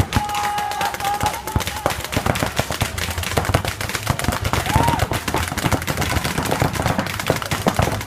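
Mechanical paintball markers firing many shots in quick, irregular succession, with overlapping volleys throughout. A held, tuneful call, a shout or a whistle, sounds over the firing for the first two seconds and again briefly about five seconds in.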